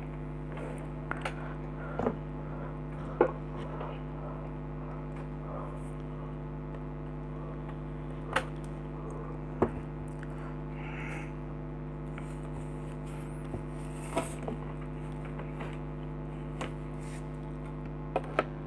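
Steady electrical hum under scattered light clicks and taps from handling, as multimeter probes are placed on the compressor nebulizer's motor coil to read its resistance.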